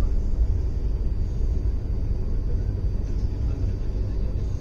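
Steady low rumble of a moving passenger train, heard from on board.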